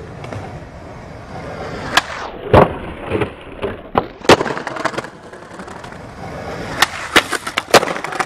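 Skateboard wheels rolling on concrete, broken by sharp clacks and bangs of the board striking, the loudest about two and a half and four seconds in, with a quick run of further clacks near the end.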